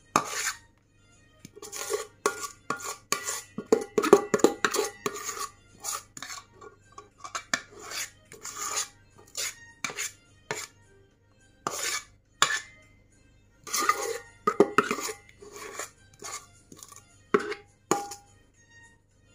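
A utensil clinking and scraping against a mixing bowl as the last of the cake batter is scraped out into the cake pan, in irregular clusters of short clinks.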